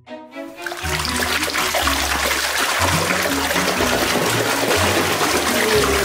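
Water sloshing and splashing in a tub as a toy animal is swished through it, starting about a second in and going on steadily, over background music with a low bass line.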